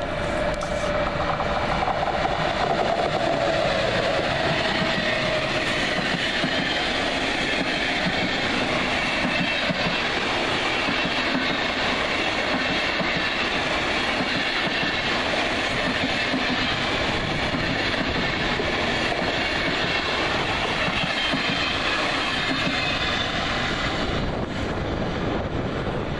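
Intercity passenger train hauled by an electric locomotive passing at speed: a steady loud rush of wheel and rail noise as the coaches go by, with a whine that falls in pitch over the first few seconds.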